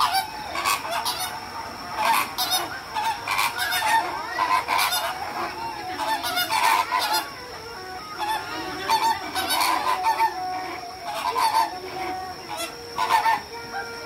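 A flock of flamingos calling with goose-like honks: many short, overlapping honks, a louder one every second or two with quieter chatter between.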